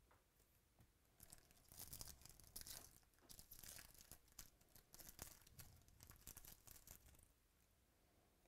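Faint crinkling and tearing of a foil-lined trading-card pack wrapper being ripped open by hand. The crackly rustling starts about a second in and stops shortly before the end.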